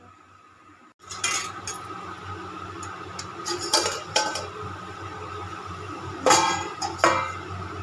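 Steel cookware and utensils clinking and clanking, starting about a second in, with a few sharp knocks of metal on metal spread through.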